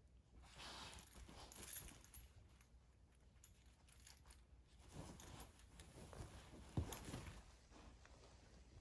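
Faint rustling and scuffling of a Labrador puppy chewing and tugging at a knotted sock toy on a fabric dog bed, in two spells, with a single sharp click about seven seconds in.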